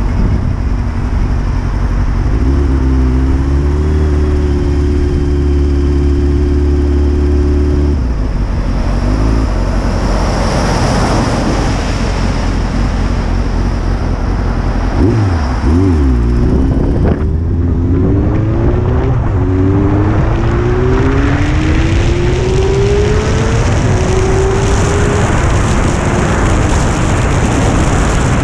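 Honda CBR600 inline-four engine under way: a steady cruise at first, then from a little past the middle it accelerates through several upshifts, its pitch climbing and dropping back at each gear change. Wind rush on the microphone runs underneath.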